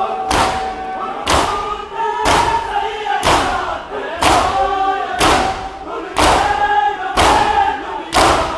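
A large crowd of men beating their chests in unison (matam), one loud slap about every second, with men's voices singing a noha lament between the strikes.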